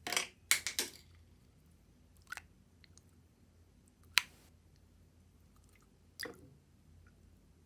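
Putty slime being squeezed and worked by hand, giving short squishy pops and clicks: a quick run of several in the first second, then single ones about every two seconds.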